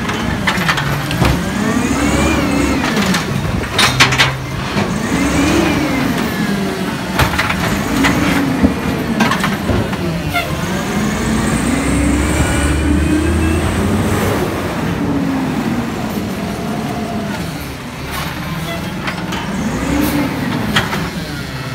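Automated side-loader garbage truck working its arm: the engine revs up and falls back over and over as the hydraulic arm grabs, lifts and tips the carts. Several sharp clanks come from the carts hitting the truck.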